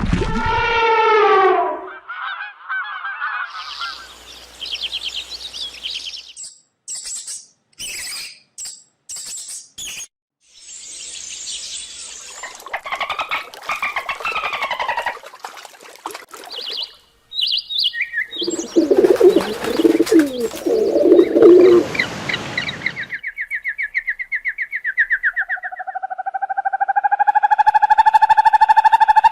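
A run of different animal calls, one after another: a falling pitched call, short chirps and clicks, bursts of harsher calling, then a long steady pitched call near the end.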